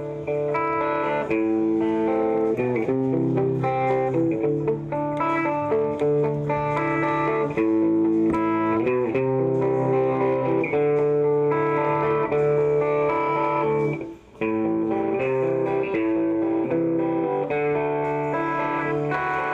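Stratocaster-style electric guitar played through an amplifier: ringing chords that change every second or two, with a brief break about fourteen seconds in.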